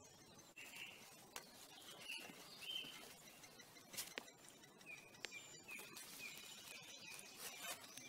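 Faint short high chirps from great spotted woodpecker nestlings calling from the nest hole. They come singly at first, then repeat about twice a second in the second half, with a few sharp clicks among them.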